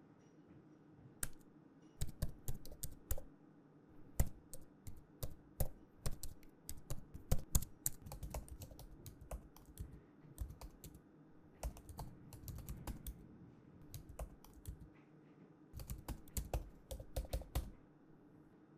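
Typing on a laptop keyboard: runs of quick key clicks broken by short pauses, starting about a second in and stopping shortly before the end.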